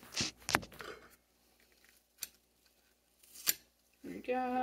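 Apple wedges pulled out of a plastic apple slicer and corer, with crisp scraping and clicking through the first second and single sharp clicks about two and three and a half seconds in. A short hummed voice sound comes near the end.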